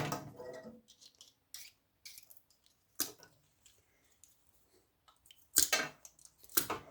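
A few faint clicks and knocks of scrap microwave parts being handled, with a louder clatter of metal about two-thirds of the way through.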